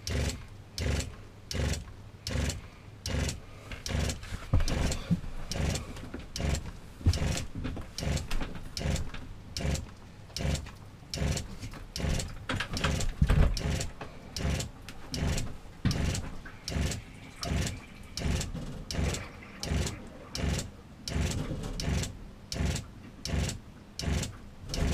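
RV fresh-water pump running in a steady rhythm of pulses, about one and a half a second. It keeps running without shutting off, a fault the owner later traces to a check valve stuck in the outlet fitting.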